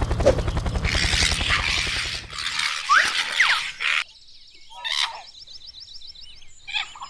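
Cartoon sound effects: a fast, even low rattling pulse, then whooshing washes with a few short rising squeaks, and a quieter rapid high ticking near the end.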